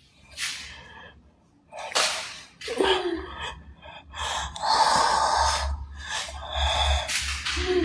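A man gasping and breathing hard in ragged bursts, some short and sharp, one drawn out for over a second, with a low rumble underneath.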